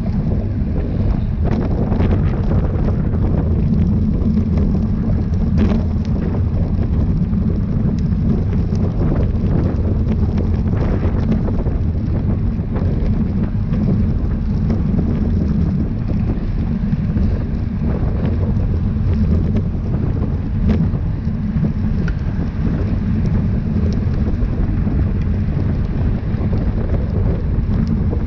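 Wind buffeting the microphone of a camera carried by a rider at race speed, a steady low rumble with a few faint clicks.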